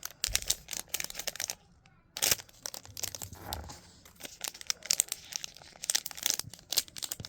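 Small plastic bags of mini resin figures being crinkled and torn open, a run of irregular rustles and clicks with a short pause about two seconds in.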